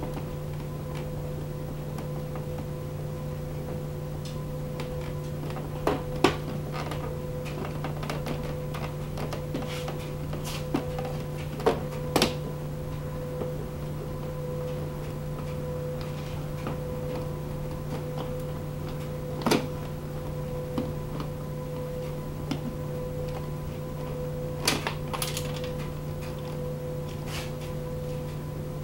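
Scattered sharp clicks and knocks of hands working plastic scooter body panels and parts loose, about eight in all, over a steady electrical hum.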